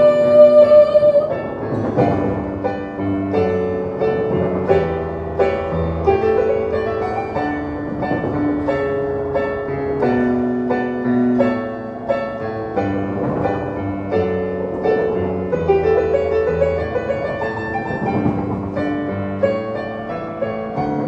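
Instrumental break of a slow ballad played live on piano, a melody of single notes over sustained chords. A held sung note fades out about a second in.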